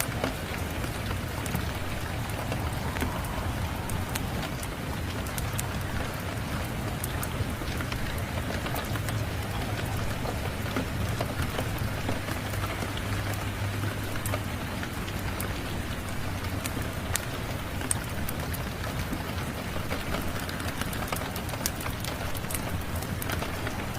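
Steady heavy rain on a surface, with a low rumble underneath and scattered sharp crackles and pops from a wood fire.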